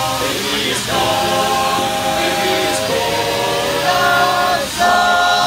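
All-male a cappella group singing held harmony chords, shifting to a new chord about half a second in and again near the end, where the singing gets louder.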